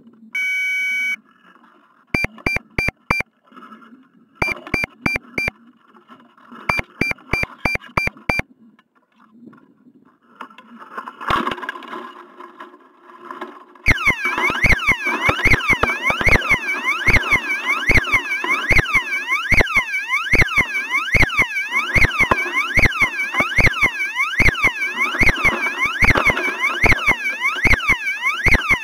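Electronic beeping from the rocket's onboard electronics: one long beep, then groups of short, rapid beeps with pauses between them, in the pattern of an altimeter beeping out its recorded altitude after the flight. About halfway through, a loud, continuous warbling alarm starts, its pitch sweeping quickly up and down.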